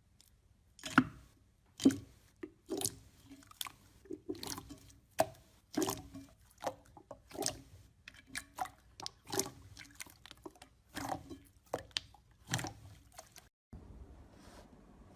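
Slime being squeezed and pressed by hand, a string of short wet squishes and pops at about two a second, stopping about a second and a half before the end.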